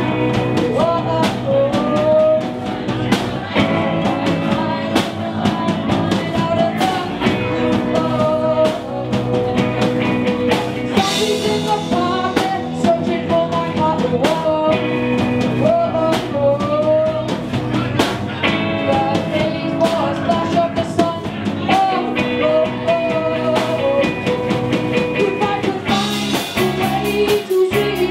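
Rock band playing: drum kit, guitar and a singing voice, with the cymbals growing brighter near the end.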